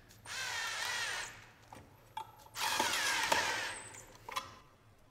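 Power drill running in two bursts of about a second and a half each, its whine wavering as it works, with a few short clicks between and after. It is fitting a Powers Wall-Dog screw anchor, drilling the hole or driving the screw anchor in.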